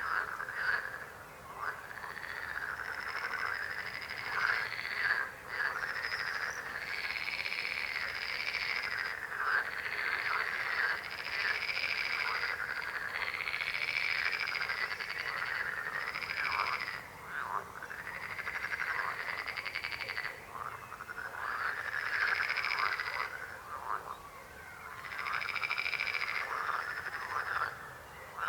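A chorus of frogs croaking, many overlapping calls running almost without a break, with short lulls every few seconds.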